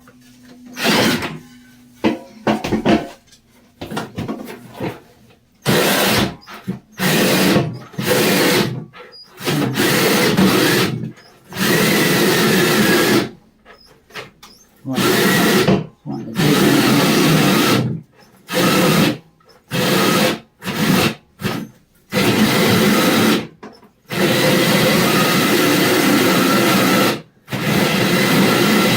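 Cordless drill turning a hole saw, cutting a large hole in stop-start bursts: short pulls of the trigger at first, then longer runs of a few seconds each. The cut is going very slowly on a battery the user fears is running low.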